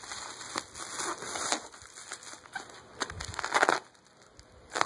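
Plastic bubble wrap crinkling and crackling in irregular bursts as it is handled and pulled about, with a louder burst about three seconds in.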